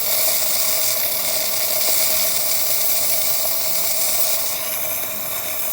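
Saeco Exprelia Evo super-automatic espresso machine running its steam function: a steady hiss of steam from the wand over the hum of the machine's pump.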